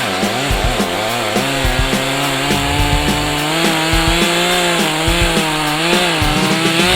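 Two-stroke engine of an ECHO CS-4010 chainsaw running at high revs, its pitch wavering up and down as the saw works through wood.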